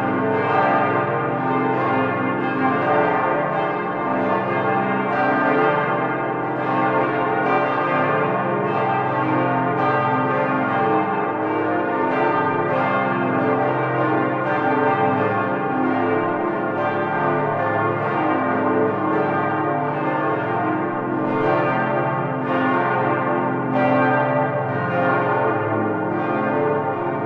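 Several church bells ringing together, their strokes overlapping without a break.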